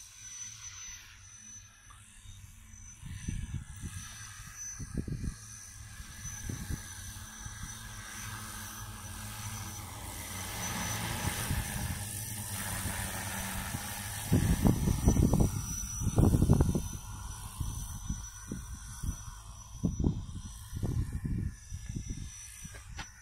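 Crop-spraying multirotor drone in flight, its propellers buzzing steadily and growing louder toward the middle as it comes closer. Low gusts of wind buffet the microphone throughout and are loudest a little past the middle.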